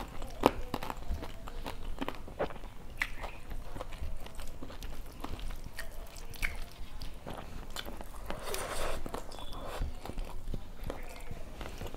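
Close-miked chewing and crunching of a mouthful of rice and crisp fried food, with wet mouth clicks at irregular intervals.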